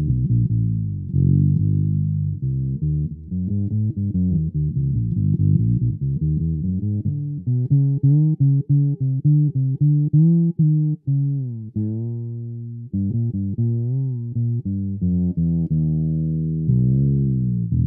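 Home-built short-scale fretless electric bass played dry through a small VOX practice amp: a run of plucked notes, some sliding smoothly up and down in pitch between notes.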